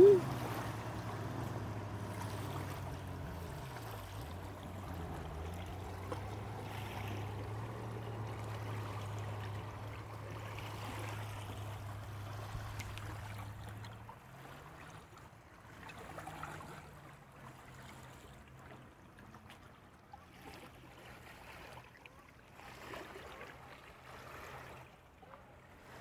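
A jet ski's engine drones steadily out on the water, its pitch dipping briefly about four to five seconds in. It stops abruptly about halfway through, and small waves lap faintly at the sandy shore.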